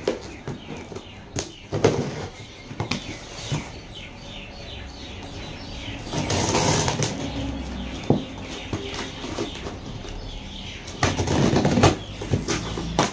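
Cardboard shipping carton being opened by hand: packing tape cut and pulled off, and the cardboard flaps rustling and scraping, with scattered small knocks. There is a longer rasp about six seconds in and louder flap rustling near the end.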